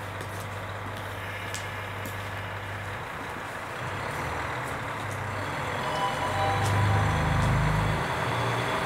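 Diesel engines of a two-car JR Hokkaido KiHa 143 railcar train idling with a steady low hum, then throttling up about three seconds in as the train pulls away, growing louder.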